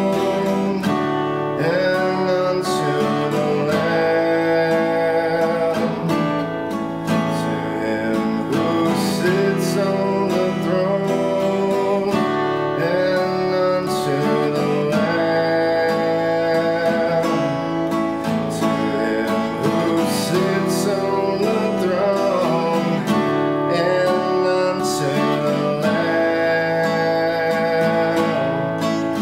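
Acoustic guitar strummed in steady chords with a man singing a slow worship song over it.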